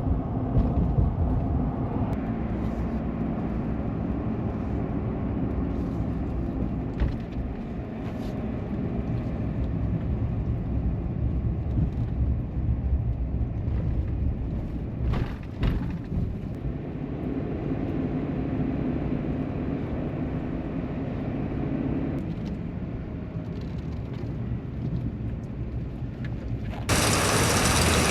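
A vehicle running at road speed: a steady low rumble with a few brief knocks. About a second before the end it gives way abruptly to a louder, even rushing noise.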